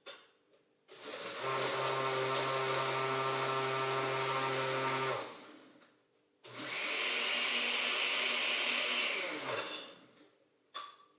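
Blender running on a shake of water, ice and strawberries, in two bursts of about four and three seconds with a short pause between; the motor's pitch drops as it spins down after each burst.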